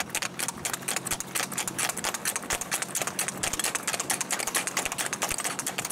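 Hooves of two gaited horses speed-racking on an asphalt road: a rapid, even clatter of hoofbeats, several strikes a second.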